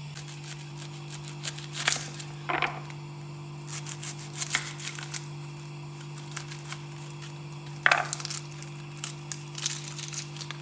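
Kitchen knife slicing an onion on a wooden cutting board, the blade knocking the board at irregular intervals, over a steady low hum.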